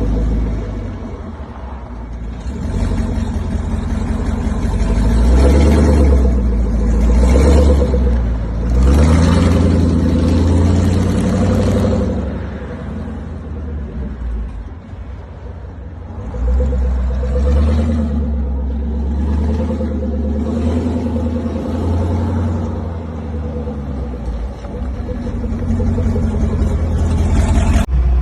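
A Land Rover Defender's swapped-in 6.2-litre LS3 V8 engine running under way, with a deep rumble, pulling hard and easing off several times: it builds through the first dozen seconds with short dips, drops back for a few seconds, then picks up again.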